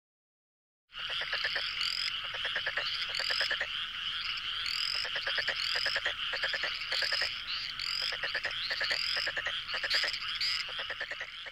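A dense chorus of calling frogs, starting abruptly about a second in: rapid trills under repeated short rising chirps, thinning out and fading near the end.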